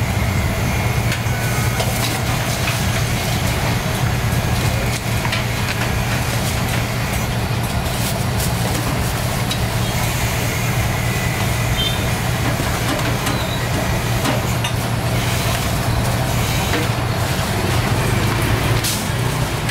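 Steady low engine hum under a continuous wash of street traffic noise, with a few faint clicks.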